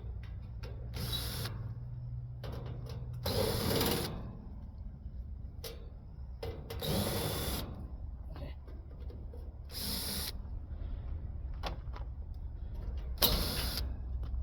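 A cordless drill backing sheet-metal screws out of an air conditioner's metal cabinet panels, in about five short bursts spread a few seconds apart.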